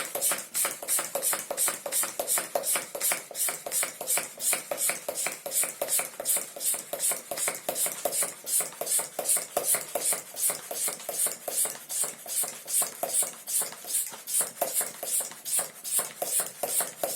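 Hand pump of a MIST-8 halo-inhaler, a pump-action pressure-sprayer tank, being worked in quick, even strokes, about three a second with a hiss of air on each. It is pressurising the solution tank before the inhalation, about fifty strokes.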